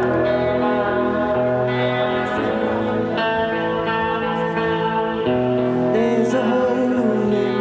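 A rock band playing live: electric guitar and bass chords ringing out and changing every second or two, with a singing voice coming in over them near the end.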